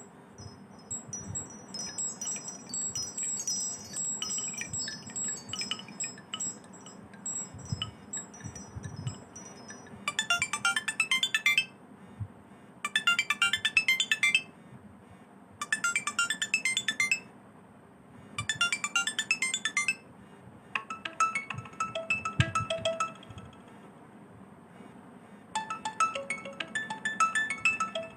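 Nokia Asha 303 ringtones playing one after another. First a high, tinkling melody, then a short chiming phrase repeated four times about three seconds apart, then two more short tones.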